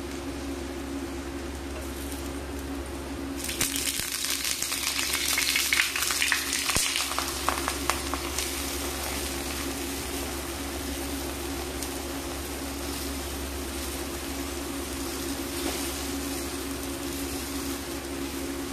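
Jaggery pancake frying in oil on a flat iron tawa, giving a steady sizzle. A few seconds in, the sizzle grows louder with dense crackling for about four seconds, then settles back to a steady hiss.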